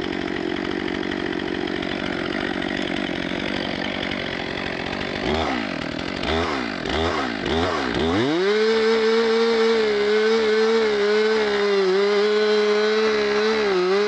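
Two-stroke chainsaw working a felling cut. For the first few seconds it runs rough and busy, as if under load in the wood. About five seconds in, the throttle is blipped four or five times, the revs rising and falling. From about eight seconds it holds a steady high-revving whine.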